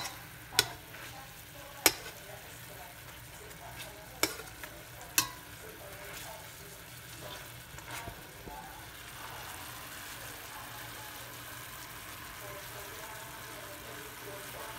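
Chicken thighs sizzling and bubbling steadily in teriyaki sauce in a stainless steel pan. Metal tongs clack sharply against the pan four times in the first five seconds or so, then a few lighter ticks.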